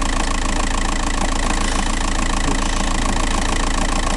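TDI 105 diesel engine idling steadily, with a noise from the flywheel that the owner takes for a flywheel fault.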